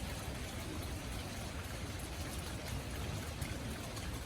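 Steady light patter of rain and dripping water, with faint scattered drip ticks over a low rumble.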